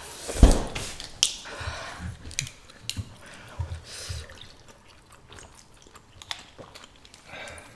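Chewing of wide pappardelle noodles, with scattered wet mouth clicks and a low thump about half a second in.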